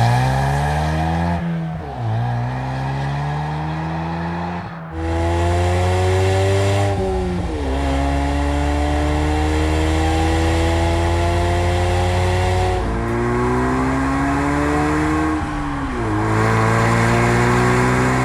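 2015–2017 Ford Mustang EcoBoost's turbocharged 2.3-litre four-cylinder, through a performance exhaust, accelerating hard through the gears: the exhaust note climbs in pitch in each gear and drops at each of five upshifts, each gear lasting longer than the one before.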